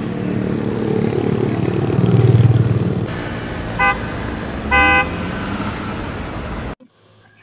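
Road traffic: engines running and vehicles passing, with a louder low rumble of a passing vehicle about two seconds in. Two short car-horn toots come about a second apart near the middle, the second a little longer. The sound cuts off abruptly near the end.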